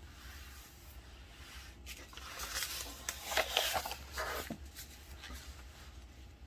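Paper pages of a worksheet packet being handled and turned, a crackly rustling and sliding that starts about two seconds in and lasts a couple of seconds, over a low steady hum.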